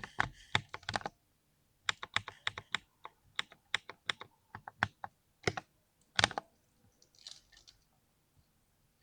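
Typing on a mechanical keyboard with a creamy sound: irregular keystrokes, a brief pause about a second in, then a quick run of strokes with one heavier stroke near the end of the run. Typing stops about two-thirds of the way through, leaving only faint soft sounds.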